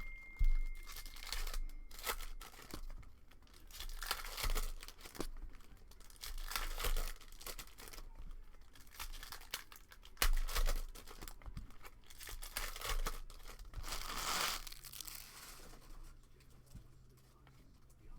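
Trading card packaging being torn open and crinkled by hand, in irregular rustling bursts, with a couple of sharp clicks from handling.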